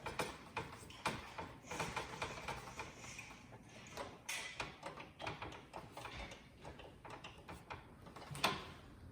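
A screw being turned back in to hold a graphics card's bracket in the PC case's expansion slot: a string of small clicks and scrapes, with one sharper click near the end.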